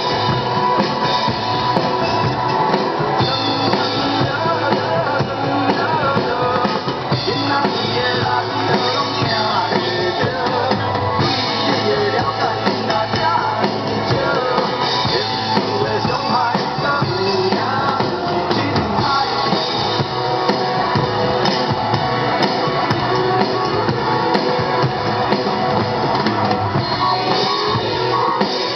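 Loud rock music with a drum kit and guitar playing steadily.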